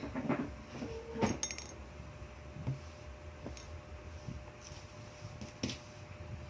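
Scattered clinks and knocks of dishes and utensils being handled, with a sharp, ringing clink about a second in. A faint steady hum runs underneath.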